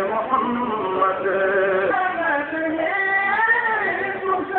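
A voice singing or chanting, with long held notes that waver and glide in pitch.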